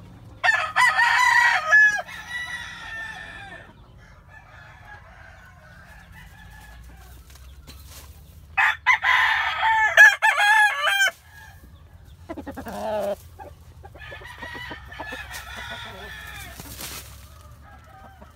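Sweater gamecock crowing twice, each crow about three seconds long, with a shorter call and softer hen clucking after the second crow.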